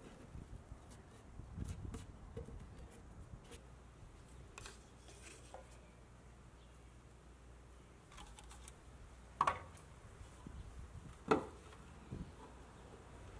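Quiet handling sounds: small clicks and light knocks as a thin wooden moulding strip and a plastic spacer block are set against the fence of a miter saw, with two sharper knocks in the second half.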